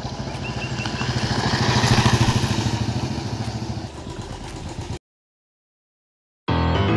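Motorcycle engine running with a rapid, even beat, swelling to its loudest about two seconds in and then easing off, before cutting off abruptly about five seconds in. Guitar music starts near the end.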